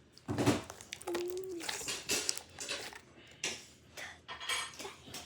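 Irregular clicks, knocks and rustles of small objects being handled, with a short steady tone about a second in.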